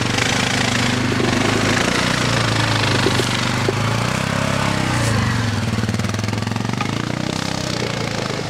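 ATV engine running under load as the quad climbs a loose, leaf-covered dirt slope, its pitch rising and falling with the throttle.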